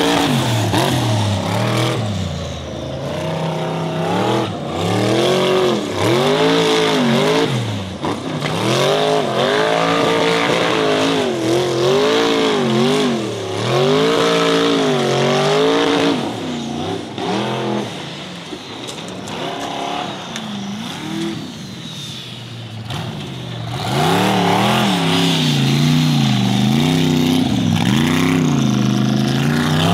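Formula Offroad hill-climb buggy's engine revving up and down over and over as the throttle is worked, the pitch rising and dropping every second or so. It falls somewhat quieter past the middle, then comes back loud for the last several seconds.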